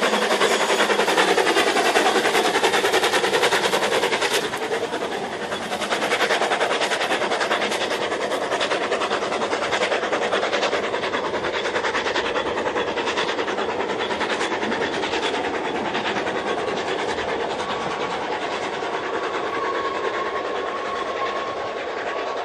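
Narrow-gauge steam locomotive Lyd working a train of carriages past: a quick steam exhaust beat over the rumble and clicking of the wheels on the rails.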